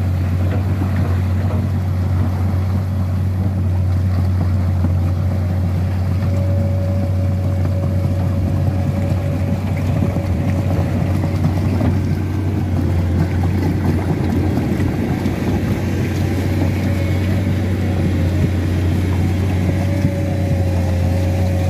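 Hydraulic excavator's diesel engine running with a steady low drone as the machine crawls on its tracks through deep mud, with a faint thin whine that comes and goes.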